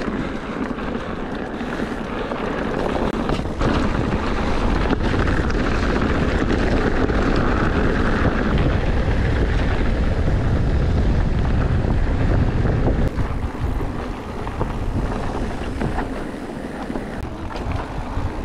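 Wind rushing over the microphone of a riding Specialized Turbo Levo electric mountain bike, with a steady low rumble from the tyres on the trail and a few sharp knocks from the bike going over bumps.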